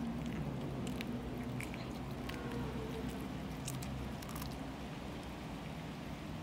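Cats chewing and crunching raw fish, with scattered sharp crunches of teeth through fish bone, against a steady low hum.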